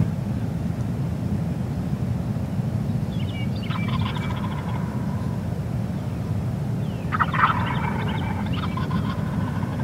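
Wild turkey gobbler gobbling twice, about three and a half seconds in and again about seven seconds in, the second gobble louder, over a steady low rumble.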